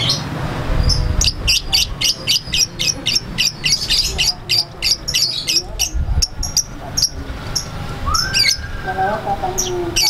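Fischer's lovebird singing: a long, fast run of sharp, high chirps, about five or six a second, then a few scattered calls near the end.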